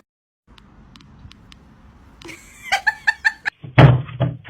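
A person laughing in a quick run of short bursts, with a loud thud near the end.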